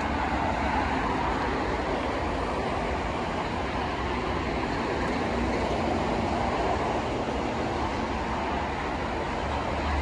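Steady highway traffic noise: an even wash of passing cars and trucks with a low rumble underneath.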